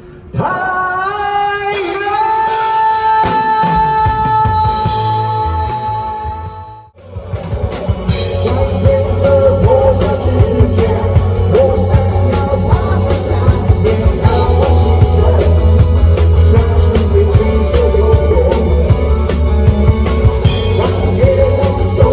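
Live rock band playing: a long held note with pitch bends fades out about seven seconds in, then the full band with drums comes back in and plays on.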